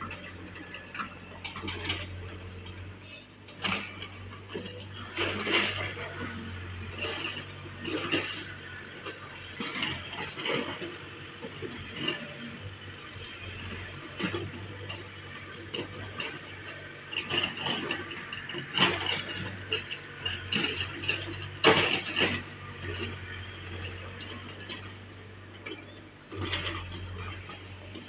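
Excavator digging soil: a steady low engine hum under irregular scraping, clattering and knocks of the bucket working through earth and stones, with a few sharper knocks, the loudest about two-thirds of the way in.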